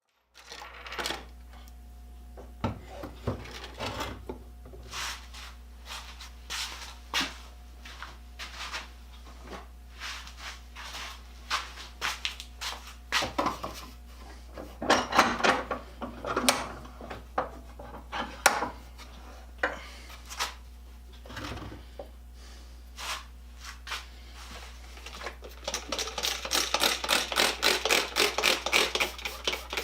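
Metal parts of a hand-crank bench grinder being handled and worked on a bench: scattered clinks, knocks and scraping. Near the end comes a fast, regular run of clicks.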